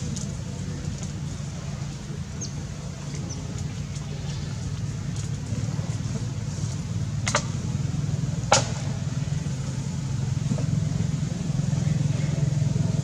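A steady low motor hum, with two sharp clicks about seven and eight and a half seconds in, the second one louder.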